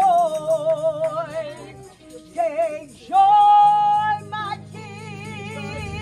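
A woman singing a gospel solo with a wide vibrato, holding one long note about three seconds in, over steady held chords from an accompanying instrument.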